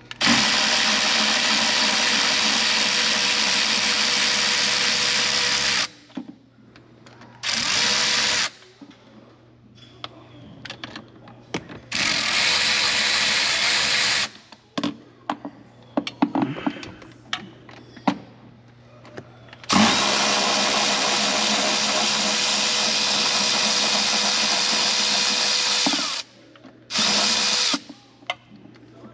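Cordless power driver spinning a 10 mm socket on a long extension, running intake manifold bolts out. It runs steadily for about six seconds, briefly twice, for about two seconds, then for another six seconds and once more briefly near the end, with small clicks of socket and metal in the pauses.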